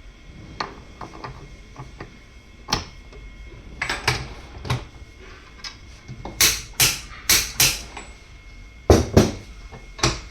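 Irregular sharp knocks and clicks of tools and metal parts being handled, with a quick run of four louder knocks about six to eight seconds in, over a faint steady high hum.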